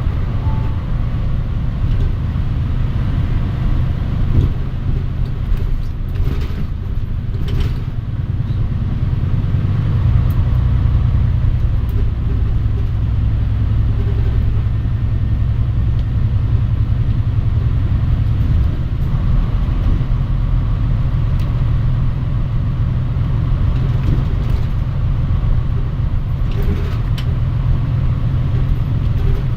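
Interior running sound of a Mitsubishi Fuso Aerostar KC-MP717 city bus on the move: a steady, low engine and road rumble. Brief rushes of noise come about six to eight seconds in and again near the end.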